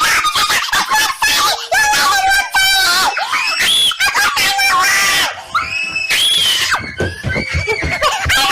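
Loud, shrill screaming: one high-pitched shriek after another, rising and falling in pitch.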